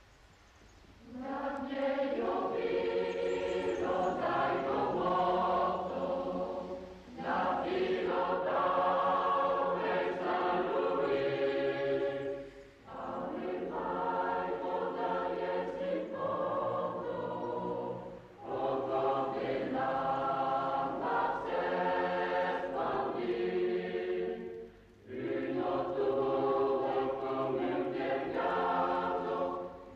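Background music: a choir singing long held phrases, with short pauses between them every five or six seconds.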